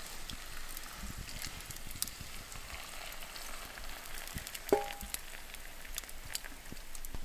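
Campfire crackling and hissing, with many small pops. About two-thirds of the way through there is one short ringing clink.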